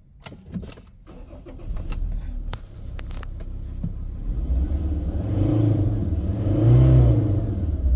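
Car engine starting after a few clicks, then revved twice. The engine is misfiring, with a P0303 cylinder 3 misfire code.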